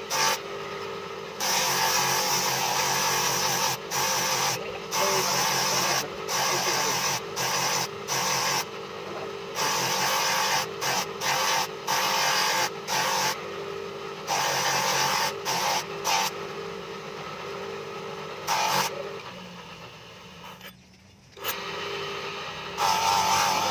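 Motor-driven grinding wheel running with a steady hum while a steel knife blade is pressed against it in repeated strokes, each a loud grinding hiss of steel on the abrasive wheel. Near the end the grinding stops and the sound drops away for a moment.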